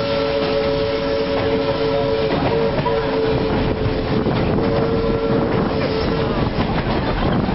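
Steam locomotive whistle blowing one long, steady chord that breaks off briefly about two and a half seconds in, then stops near the end. Underneath it is the rumble of the moving train on the track.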